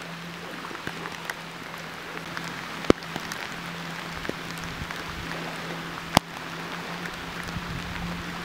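Light rain falling, with scattered drops ticking close by and two louder sharp taps about three and six seconds in, over a steady low hum.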